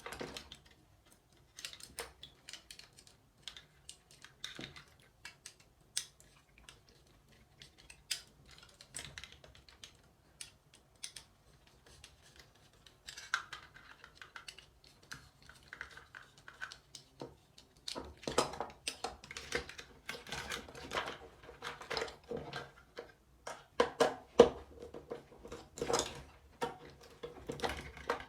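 Irregular small clicks, taps and rustles of hands working with electrical wires and switch parts, sparse at first and busier and louder in the second half.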